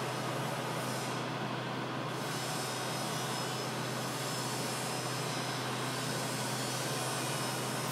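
Steady rushing background noise with a constant low hum underneath, unchanging throughout.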